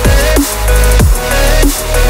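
Electronic background music with a heavy bass line and repeated falling pitch sweeps, about two a second.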